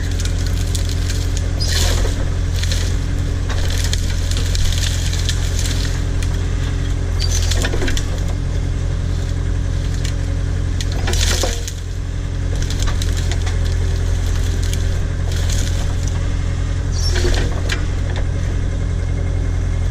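Case/Davis D100 backhoe's engine running steadily, with a few short cracks and crunches as the bucket works through brush.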